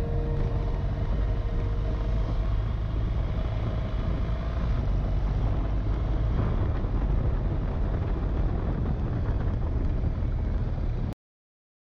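Onboard sound of a motorcycle riding a gravel track: wind rush on the camera microphone blends with engine and tyre noise into a steady rumble. It cuts off suddenly about eleven seconds in.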